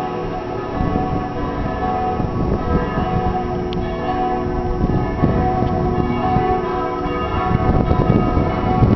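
Church bells pealing, several bells ringing at once so their tones overlap and sustain. An uneven low rumble joins underneath about a second in.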